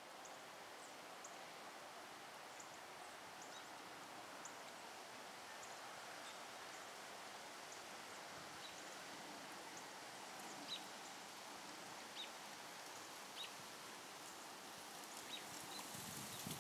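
Faint steady outdoor background hiss, with a few short faint high ticks now and then.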